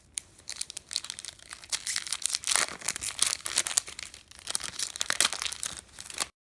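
Foil wrapper of a Yu-Gi-Oh trading card booster pack being torn open and crinkled by hand: a dense, irregular crackling that stops abruptly near the end.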